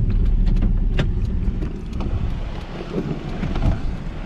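Honda car running with a low rumble, with several clicks and knocks in the first second as the driver gets out of the car. The rumble eases about two seconds in.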